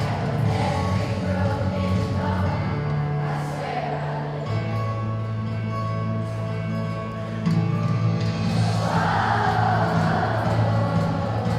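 Music with a group of voices singing over held bass notes; the singing grows louder about nine seconds in.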